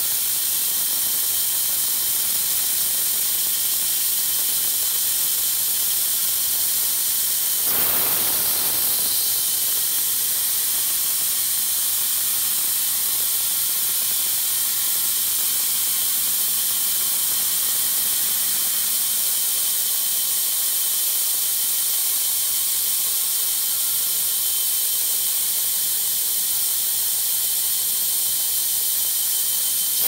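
Power saw ripping a board lengthwise into feather-edge boards: a steady, loud, high-pitched hiss of the blade cutting through the wood. There is a brief louder swell about eight seconds in.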